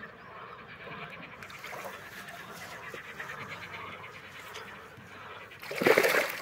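A hooked carp thrashing at the surface close to the bank, ending in one loud splash near the end.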